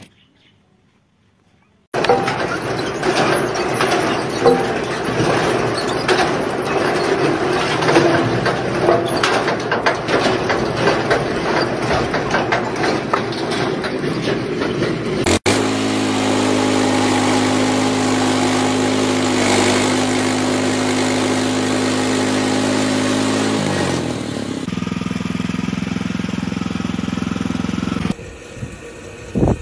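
Machinery running, in separate clips. First a dense clatter of knocks, with split firewood tumbling through the grate of a firewood processor. Then, after an abrupt change, a steady engine drone holding one pitch, which shifts again near the end.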